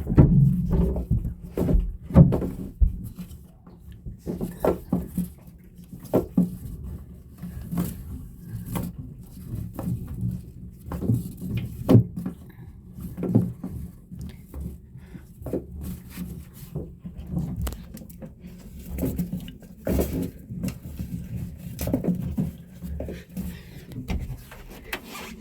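Anchor chain and rope being fed down into the boat's chain locker: irregular clunks and knocks of chain links piling up, over a steady low hum.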